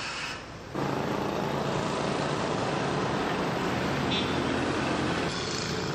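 Street traffic: vehicle engines running and passing with road noise. A brief dip is followed by an abrupt jump to louder, steady engine hum and traffic noise less than a second in.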